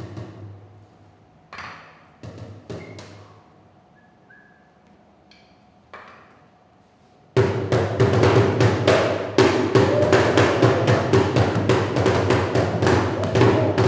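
Drumsticks striking an upturned plastic bucket: a few scattered, ringing hits. About seven seconds in, a loud, fast percussive beat starts suddenly, about six strikes a second over a steady low drone.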